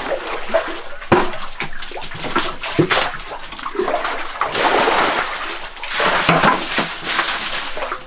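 Water splashing and sloshing in a pond, in irregular bursts of sharp splashes.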